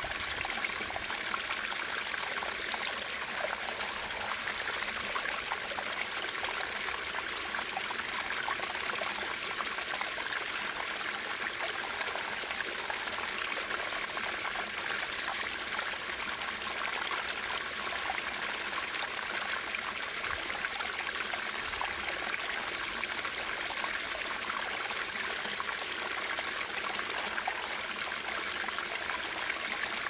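Shallow stream rushing and splashing over and around rocks, a steady, even hiss of flowing water with little low rumble.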